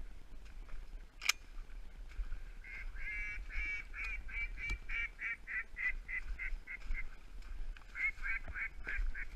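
Duck quacking in a rhythmic series of about three quacks a second, running for about four seconds. A shorter run follows near the end. A single sharp click comes about a second in.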